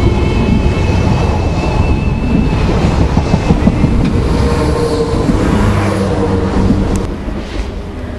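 SNCF Z 20500 double-deck electric commuter train running past along the platform: a steady rumble with wheels clicking over the rails and a high electric whine from its traction equipment that fades out a few seconds in. The sound gets quieter about seven seconds in.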